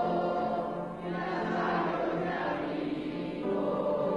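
Choral music: voices holding slow, sustained chords, which change about a second in and again near the end.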